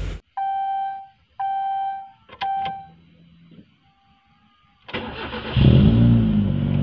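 Three short electronic beeps and a click, then a Timor sedan's engine is cranked by the starter about five seconds in. It catches quickly, the revs swell briefly, and it settles into a steady idle.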